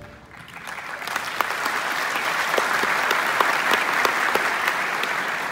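Large audience clapping, swelling about half a second in and easing off near the end.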